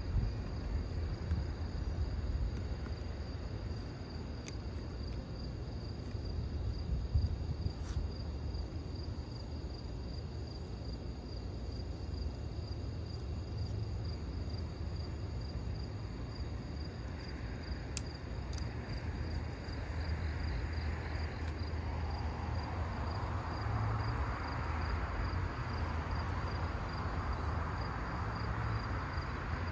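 Crickets chirping in a steady high trill on a summer night, over a constant low rumble. A broad rushing noise swells from a little past halfway in.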